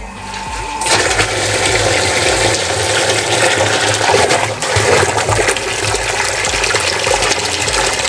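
Water gushing from a pump's delivery hose into a plastic barrel. It starts abruptly about a second in as the float switch, lifted out of the water, turns the pump motor on, then pours and churns steadily.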